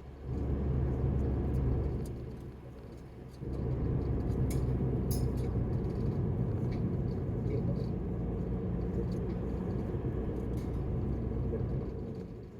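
Car cabin road noise while driving: a steady low rumble of engine and tyres that dips for about a second and a half roughly two seconds in, then carries on evenly. A few short faint high clicks are heard near the middle.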